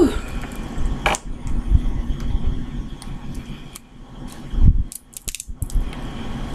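Boiled shellfish being peeled by hand: irregular sharp cracks and clicks of shell, with a quick cluster of them about five seconds in and a low thump just before.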